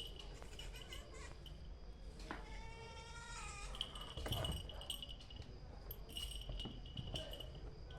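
Kitten making a bizarre high-pitched call at the sight of a lizard: one drawn-out cry a little over two seconds in, lasting about a second and a half, its pitch dropping at the end.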